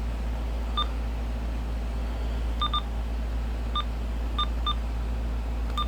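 Key beeps from a Uniden BC370CRS scanner clock radio as its buttons are pressed to set the clock: about seven short beeps at irregular intervals, two pairs in quick succession, over a steady low hum.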